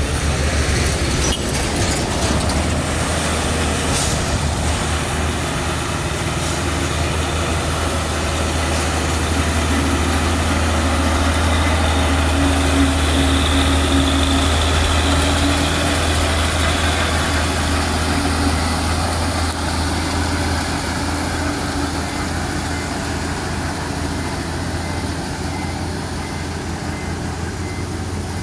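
A heavy diesel vehicle's engine working hard up a steep climb: a steady low drone that grows louder toward the middle and then slowly eases off.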